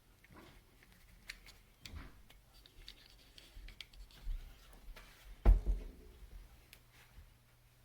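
Scattered light clicks and small knocks of handling noise, with one louder, low thump about five and a half seconds in.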